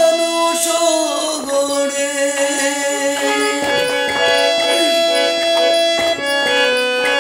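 Harmonium playing a melody in held, steady reed notes for a Bengali devotional folk song, with a few sparse drum strokes. A man's voice sings briefly near the start.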